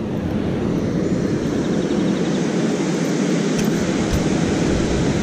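Steady low rushing rumble of water pouring through a concrete spillway.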